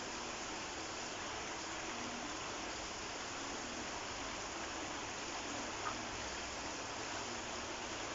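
Shallow stream flowing steadily: an even rush of running water, with one small click about six seconds in.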